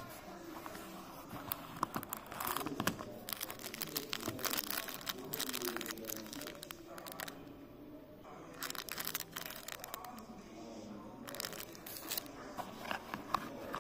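Clear plastic wrapper around a sunglasses cleaning cloth crinkling and rustling as it is handled, in two stretches of irregular crackle with a short pause between them.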